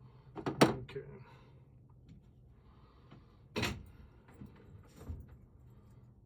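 Sharp clicks and knocks of metal lock-handle parts being handled and fitted together: a loud one about half a second in, another about three and a half seconds in, and a fainter one near the end.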